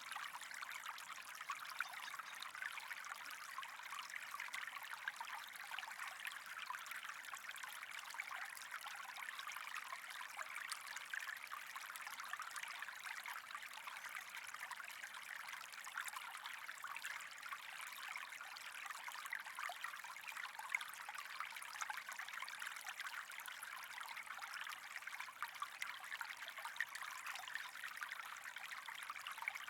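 Steady trickling, running water, an even hiss with fine crackle that neither swells nor stops.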